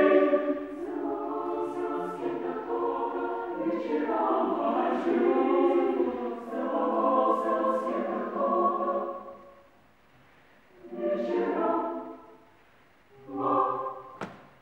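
Women's chamber choir singing a cappella: held chords for about ten seconds that die away, then two short phrases with silences between them. A sharp click sounds just before the end.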